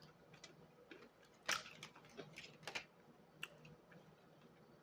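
Faint, scattered small clicks and ticks, the loudest about one and a half seconds in, over a low steady hum.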